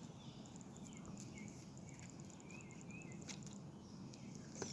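Faint songbirds chirping in the background, short curving notes repeated every second or so, with a few soft clicks.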